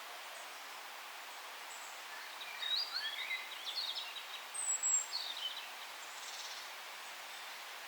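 Songbirds calling and chirping over a steady forest hiss: a burst of quick, jumbled chirps about two and a half seconds in, a thin high whistle and a falling phrase around the middle, then only the even background noise.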